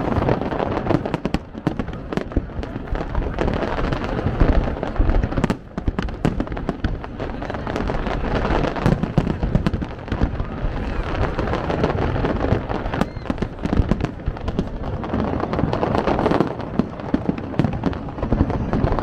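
A fireworks display going off in a rapid, irregular string of bangs and crackles, with crowd voices underneath.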